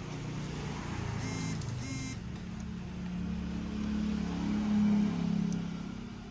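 A motor vehicle's engine running, swelling to its loudest about five seconds in and then fading, with two short beeps between one and two seconds in.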